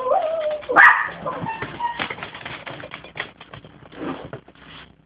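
A dog whines and gives a single bark about a second in, then a run of light clicks and knocks follows.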